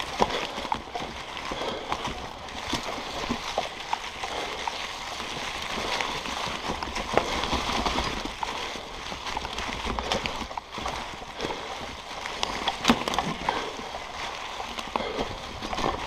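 Mountain bike rolling along a trail covered in dry fallen leaves: the tyres crunch and rustle through the leaves, with frequent clicks and knocks from the bike over bumps, the sharpest about thirteen seconds in.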